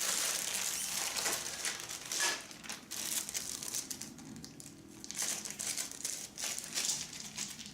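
Plastic packaging crinkling in irregular bursts as it is handled and opened to get at wooden game pieces.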